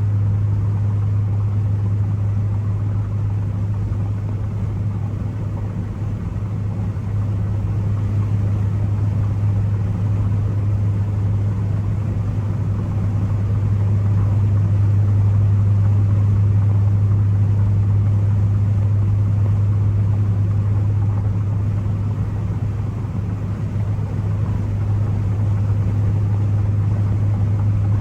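Ford Focus ST's turbocharged four-cylinder engine with road noise, a steady low drone while the car cruises, easing off slightly twice.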